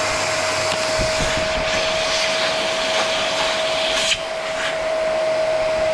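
Bosch vacuum cleaner running at full speed: a steady, high motor whine over the rush of air, with a brief click about four seconds in.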